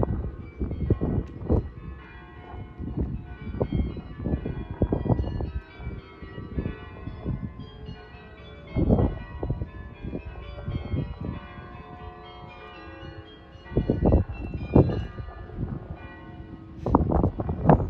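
Several church bells ringing at once across a city, their overlapping tones sounding throughout. Wind gusts rumble on the microphone several times, loudest about nine, fourteen and seventeen seconds in.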